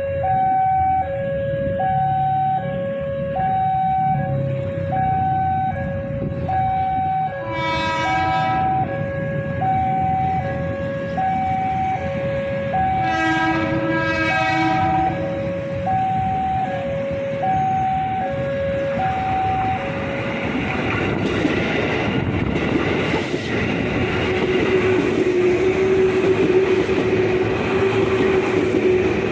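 An electronic two-tone warning alarm alternates about once a second. A KRL Commuter Line electric train sounds its horn, first a short blast and a few seconds later a longer one. The alarm then stops, and the train comes through with the rising rumble of wheels on rail and a steady electric-motor whine.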